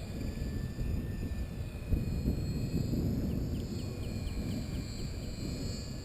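Wind buffeting the microphone, with the faint steady whine of the FMS 1400mm Pitts RC biplane's electric motor in flight. A bird gives a quick chirping trill of about eight notes in the middle.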